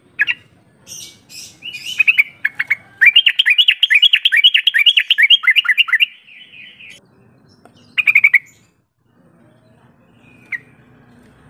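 Yellow-vented bulbul calling: a few short notes, then a fast run of bubbly chirps lasting about three seconds, and one more short burst of chirps later on.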